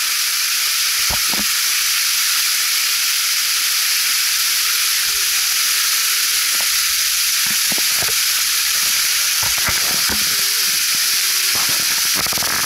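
Small waterfall falling close by, a loud, steady hiss of water spattering onto rock and into a shallow pool.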